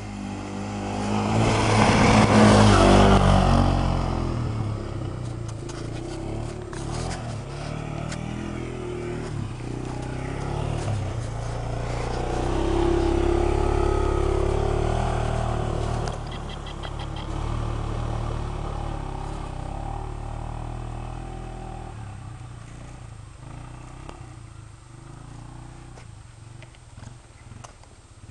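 Arctic Cat ATV engine running as the four-wheeler rides past. It is loudest about two to three seconds in and again from about twelve to sixteen seconds, then fades as it rides away.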